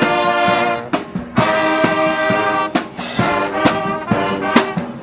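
Marching band playing: the brass section holds loud chords, broken by short pauses, with sharp drum hits in between.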